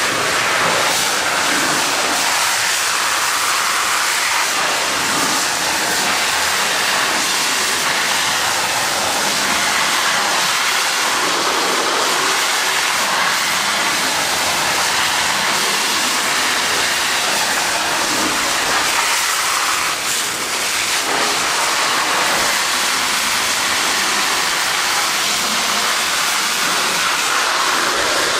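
High-pressure water jet from an Akron severe duty monitor hissing steadily and splashing against a bulldozer's steel tracks as it washes off mud.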